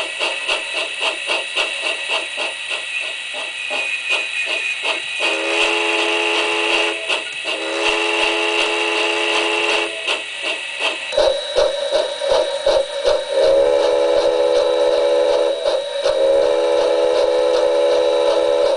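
A model locomotive sound recording plays through a small 23mm speaker with no enclosure. A steady rhythmic chuffing beat runs throughout, and from about five seconds in a multi-tone whistle sounds in several long blasts.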